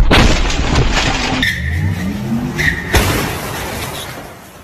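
A car crash recorded on a dashcam: loud road noise and a collision as an oncoming car hits head-on. About a second and a half in the sound changes to a rising motor note, with a sharp knock about three seconds in, then fades.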